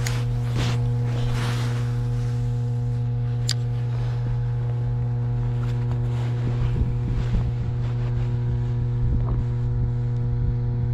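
Steady low electrical hum over the rush of water flowing out below a dam, with a few short splashes in the first two seconds.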